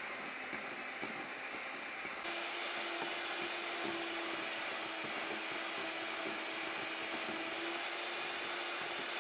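Electric hand mixer beating egg yolks and sugar in a glass bowl: a steady motor whir with the beaters churning the batter. In the first two seconds there are light regular ticks. About two seconds in the sound steps up and a steady hum sets in.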